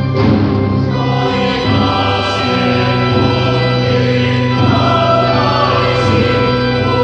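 Boys' choir singing in long held notes, over steady low sustained chords from the accompaniment.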